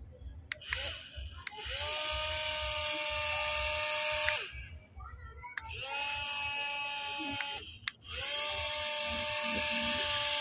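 Small electric motor of a homemade matchbox toy helicopter, switched on three times with a click. Each time it spins up to a steady high whine. The first two runs wind down with a falling pitch, about 4 and 8 seconds in.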